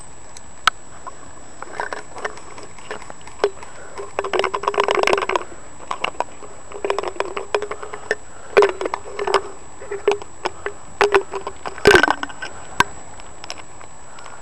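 Close handling noise: gloved hands and gear rubbing and scraping right at the microphone, with scattered clicks, and one sharp knock near the end.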